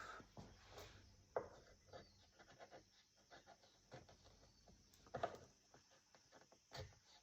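Hand carving on wood: faint, irregular scraping and light knocks of a carving tool cutting the wood, with a sharper knock about five seconds in.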